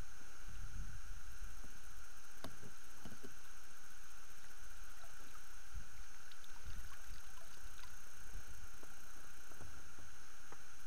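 A pike being landed with a landing net beside an inflatable boat: irregular low bumps and handling knocks, with a few sharp clicks, over a steady high electronic hum.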